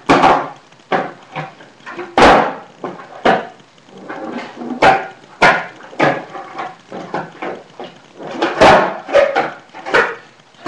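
Skateboard on a concrete floor: the tail popping and the board slapping and clattering down in a string of sharp hits, roughly one every second, with the wheels rolling between them, as flatground tricks are tried and mostly not landed.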